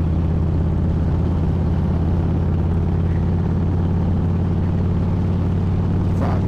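Harley-Davidson Road King's 88-cubic-inch V-twin running at a steady, even pace while riding, heard from a helmet-mounted microphone.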